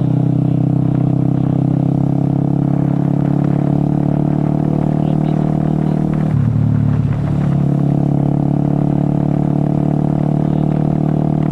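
Motorcycle engine running steadily while riding, picked up by a small microphone near the rider's mouth inside a closed-visor helmet. About six seconds in, the engine note dips briefly and then comes back.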